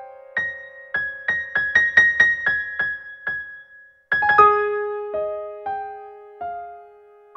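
Solo piano improvisation: a quick series of high notes over a held tone, a brief near-silent pause about four seconds in, then a chord whose lower note rings on while a few slower notes sound and die away.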